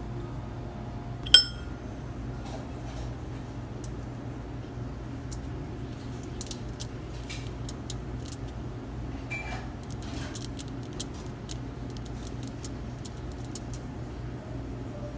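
Tableware clinking as a fork works at a slice of cake on a ceramic plate: one loud ringing clink about a second in, then scattered light taps and clicks. A steady low hum of room noise runs underneath.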